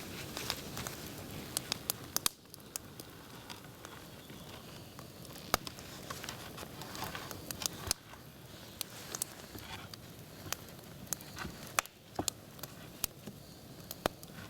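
Wood campfire crackling, with sharp, irregular pops and snaps over a soft steady hiss.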